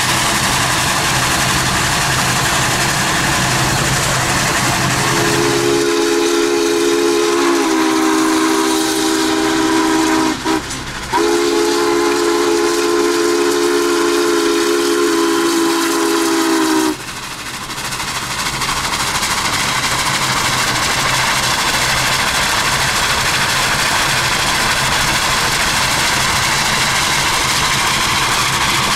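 Union Pacific 844's steam chime whistle blowing a long chord of several notes, with a brief break about halfway, over the steady rush of road and wind noise inside a car pacing the train.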